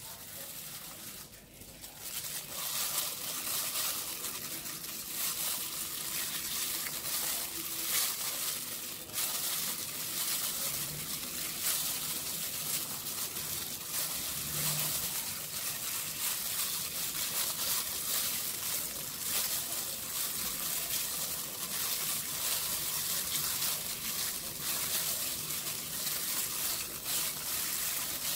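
Plastic food-prep glove crinkling and rustling as a hand squeezes and crumbles pickled pork sausage in an aluminium pot: a dense, steady crackle that starts about two seconds in.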